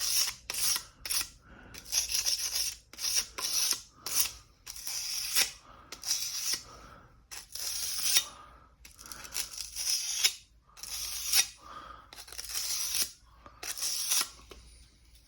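Abrasive paper rubbed back and forth along a steel kitchen knife's spine in repeated short scraping strokes, about one a second, easing its sharp corners.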